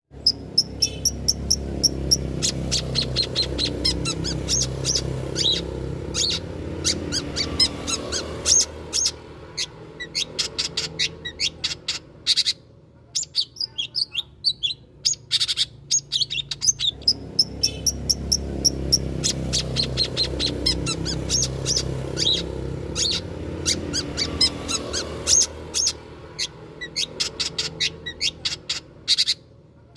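Long-tailed shrike (cendet) singing a fast string of sharp, high chattering chirps, a lure recording for training caged birds to sing along. The same passage repeats about halfway through, and a low rumble runs under the first part of each pass.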